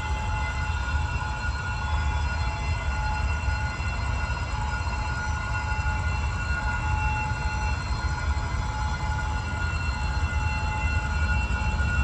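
Running noise of a moving passenger train heard on board a railway coach: a steady deep rumble with a thin, steady whine of a few high tones above it.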